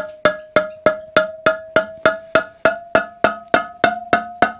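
A soft-blow hammer tapping a greased metal shaft through a Ransomes Ajax cylinder mower's roller, in steady blows about three or four a second. Each blow rings with a clear metallic note that creeps slightly higher in pitch as the shaft goes through.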